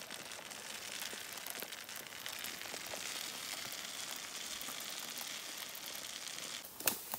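Shelled corn pouring steadily from a feed sack into a plastic barrel, an even hiss of kernels sliding and landing on the pile. A single sharp knock near the end.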